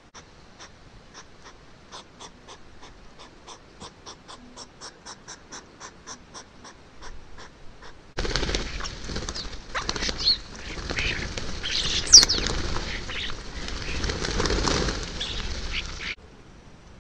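Two hedgehogs snorting and huffing loudly at each other, a rough, noisy chuffing with a few sharp squeaky notes, which stops suddenly near the end. Before it comes a steady series of faint sharp ticks, about three or four a second, slowly getting louder.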